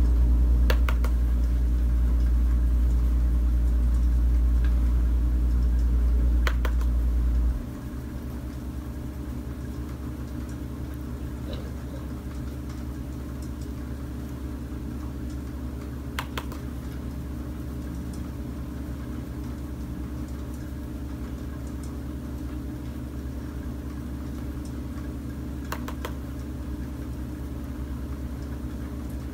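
A steady low hum, much louder for the first seven seconds or so, then dropping suddenly to a quieter steady hum, with a few faint light clicks.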